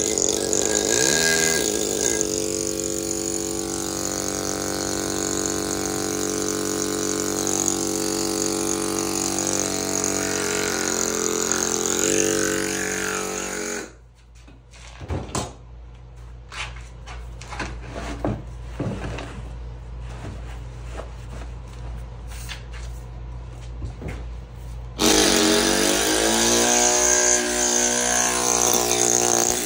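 Pneumatic carving hammer running with a steady buzzing pitch as it drives a chisel into marble. About 14 s in it cuts off, leaving a quieter stretch with scattered light taps. About 25 s in it starts again, its pitch sliding before it steadies.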